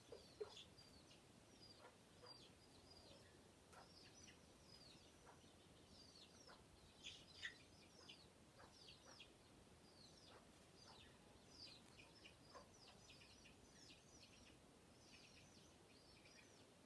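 Chicks peeping faintly and continually, short falling peeps several a second, with a few low hen clucks near the start.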